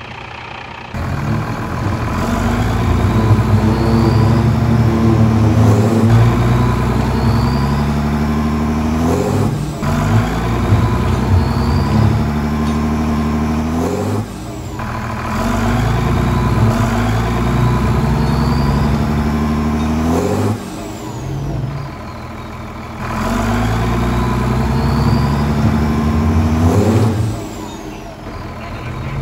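Heavy diesel truck engine revving hard in repeated surges. Each one climbs in pitch and then drops off, roughly every five to six seconds.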